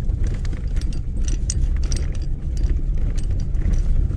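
A vehicle driving over a rough snow-covered field, heard from inside the cab: a heavy, steady low rumble of engine and tyres on bumpy ground, with frequent irregular clicks and rattles of the cab and loose things jostling.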